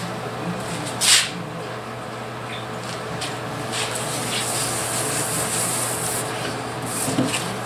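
Hand wet sanding (color sanding) of fresh paint on a truck door with wet sandpaper on a pad: a steady, high rubbing hiss from the strokes, done to knock down orange peel. A short, loud hiss about a second in.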